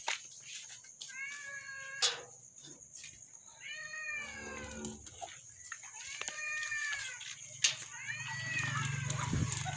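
A cat meowing four times, each call rising and then falling in pitch, two to three seconds apart. A steady high-pitched whine runs underneath, and there are a couple of short knocks.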